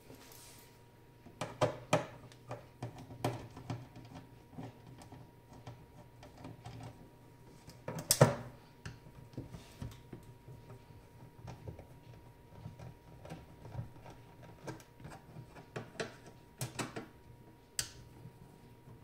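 Scattered small clicks and knocks of hand work on the casing of an Eschmann E50 diathermy unit as its side screws are taken out and the cover is handled, with one louder knock about eight seconds in.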